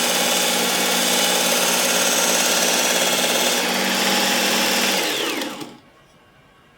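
Work Sharp Ken Onion Edition Mk2 belt sharpener with the blade grinding attachment running steadily on a fine 22-micron belt, with its motor hum and belt hiss. About five seconds in it is switched off and spins down, falling in pitch until quiet.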